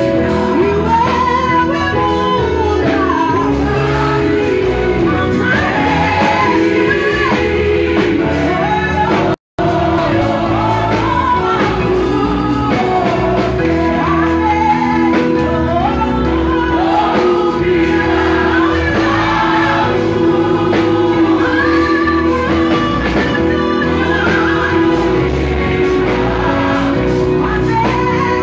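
Live gospel praise singing: a woman leads on a microphone with other singers joining in over a steady musical accompaniment. The audio drops out for a split second about a third of the way in.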